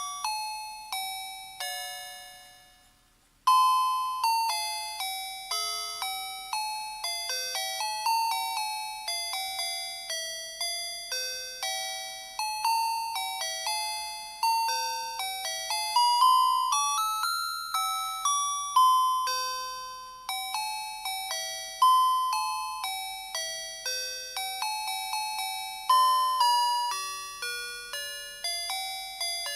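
Electronic beeping melody from the music chip of a set of musical Christmas lights, playing a carol note by note in thin, bell-like tones. The tune fades out about three seconds in and a new tune starts just after.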